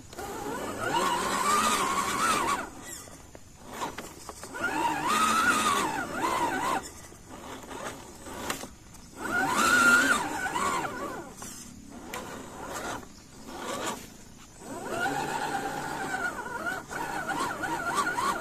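Electric motor and gear drive of a 1/10 scale RC crawler pickup whining in four bursts of throttle, the pitch rising and falling with each burst.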